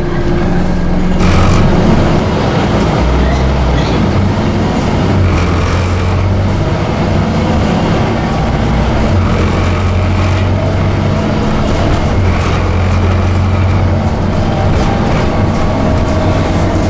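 Inside a Scania OmniCity single-deck bus on the move: the engine drones low and steady under road noise, its note stepping up and down several times as the bus changes speed.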